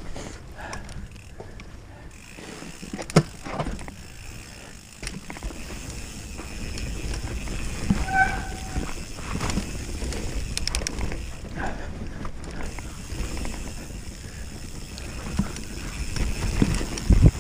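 Commencal mountain bike descending a dirt forest trail: tyres rumbling over the ground, the bike rattling and clattering over roots and bumps, with wind on the helmet camera. A sharp knock comes about three seconds in and a short squeak about eight seconds in.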